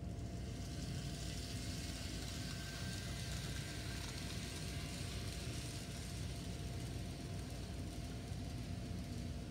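N scale model freight train running past on the layout track: a high rolling hiss of wheels and motor that swells in the middle and fades out near the end, over a steady low hum.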